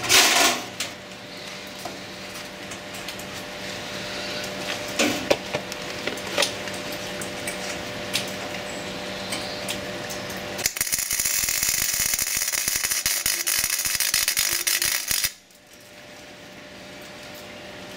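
Flux-core MIG welding arc crackling on thin-walled steel tube for about four and a half seconds, starting about eleven seconds in and cutting off suddenly when the trigger is released. The bead misses the joint. Before the weld there is a steady hum with a few clicks and knocks as the torch is set in place.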